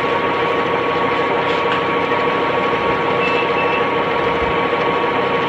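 Funai VCR/DVD player's mechanism running, a steady whir with two held tones, one lower and one higher.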